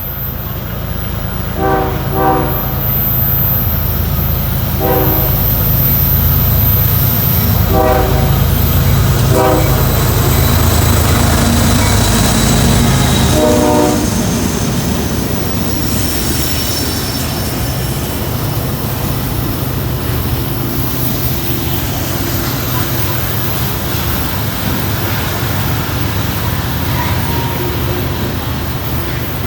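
Diesel freight locomotives, led by a Union Pacific unit, working hard under load up a steep grade, their engines a deep steady rumble. The horn sounds a salute of six blasts over the first fourteen seconds, mostly short, the last one longer. After that the rumble eases a little as the train rolls on.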